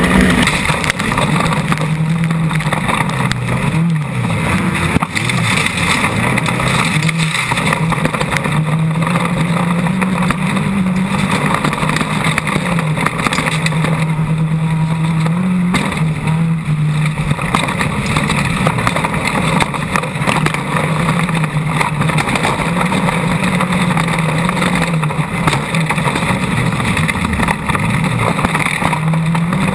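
Off-road race vehicle's engine running hard, its pitch rising and falling again and again as it accelerates and backs off, over steady rattling and rough-terrain noise.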